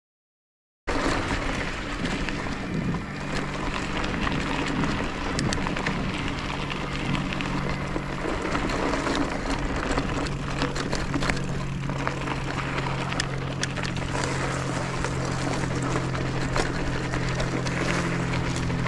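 Mountain bike ridden down a gravel track: tyres crunching and clicking over gravel with wind on the microphone and a steady low hum. It starts abruptly about a second in.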